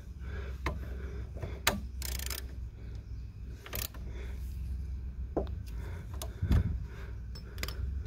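Scattered metal clicks and taps of a hand tool on a Gold Wing GL1800's Nissin front brake caliper as the brake pad retaining bolt is snugged up, with one heavier knock near the end over a low steady rumble.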